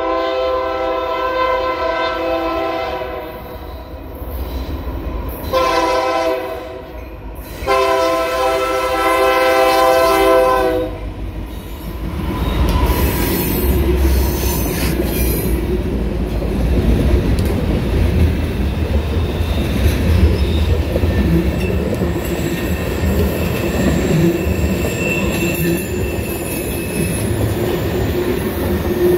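Freight train horn, a multi-note chord, sounds three blasts: a long one, a short one about five seconds in, and another long one. Then the diesel locomotives pass with a low rumble, and loaded tank cars roll by with steady rail noise and a faint wheel squeal.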